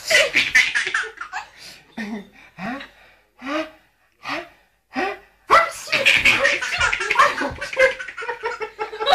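Baby laughing hard in long, breathless peals. A few short, low vocal noises from a man come in the lull before the laughter starts up again.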